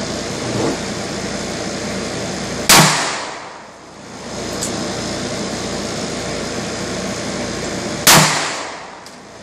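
Two shots from a .44 Magnum revolver, each a single sharp, loud crack with a short echo, about five and a half seconds apart: one near three seconds in, the other near the end.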